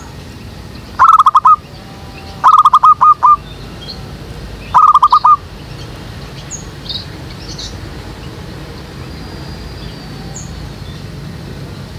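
Zebra dove cooing: three loud phrases of quick staccato notes, the second and third longer, from the decoy bird used to lure wild doves. Faint high chirps of small birds follow.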